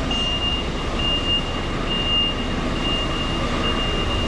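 Vehicle reversing alarm beeping steadily, about two high beeps a second, over the steady rumble of a running machine.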